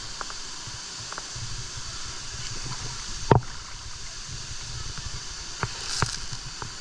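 Steady rush of a waterfall, with a few short sharp knocks or splashes, the loudest about halfway through.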